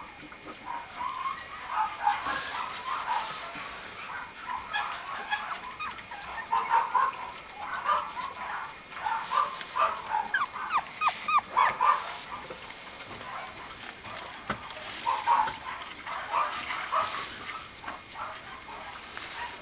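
Puppy whimpering and yipping in short, high calls, with a denser, louder run of calls about ten to twelve seconds in.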